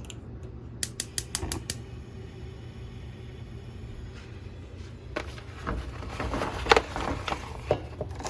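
Kitchen handling noise: a quick run of sharp clicks about a second in over a steady low hum, then irregular knocks and clatter of cookware in the last few seconds.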